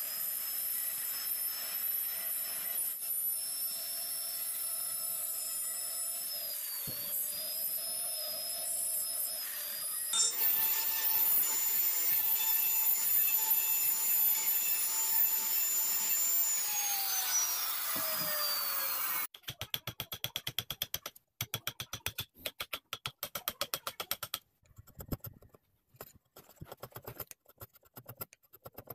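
DCA electric trim router running and cutting into wood with a steady high whine, its pitch falling as the motor winds down after about two-thirds of the way through. Then a hand chisel pares the wood in quick scraping strokes.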